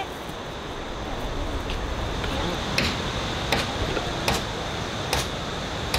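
Evenly spaced sharp strikes of a hand tool on wood, about one every 0.8 seconds, starting about three seconds in, over a steady hiss.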